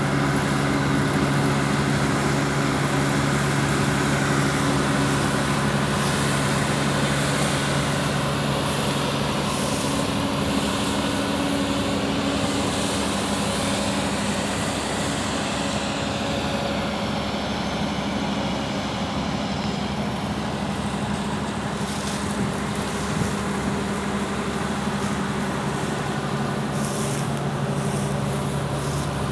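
An engine running steadily. Its note changes about ten seconds in and settles back to the first note near the end.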